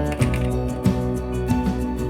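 Background music with held instrumental tones and a steady beat.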